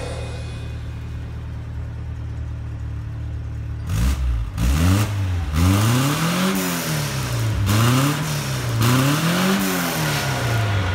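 Toyota Carina TA60's 2T four-cylinder carburetted engine idling steadily through its custom exhaust, then revved up and down about four times, with the pitch rising and falling smoothly about every second and a half.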